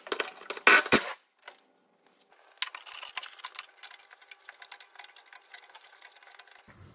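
Cordless ratchet spinning a heat-shield fixing undone, a loud burst in the first second. After a short pause, quieter rapid clicking and rattling goes on for several seconds and fades.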